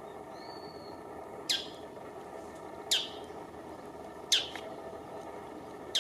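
Bull-headed shrike calling: sharp, clear calls, each a very quick downward sweep, about one and a half seconds apart, three in full and a fourth just at the end. A faint short whistle comes before the first.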